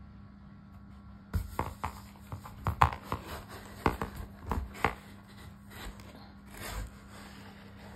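A slim cardboard phone box being handled and pulled out of a cardboard shipping carton: a run of sharp knocks, taps and scrapes that starts about a second and a half in and dies away near the end.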